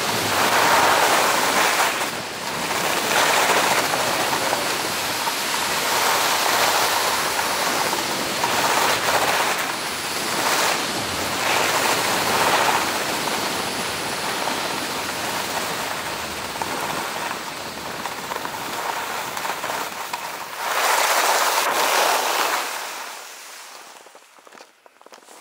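Skis scraping and carving on groomed snow with wind rushing over the microphone, swelling with each turn every second or two. It fades away near the end as the skier slows to a stop.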